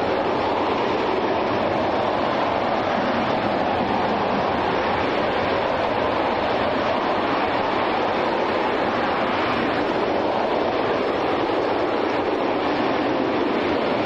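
RS-25 liquid-hydrogen/liquid-oxygen rocket engine firing in a static test: a steady, unbroken rumble that holds at the same level throughout.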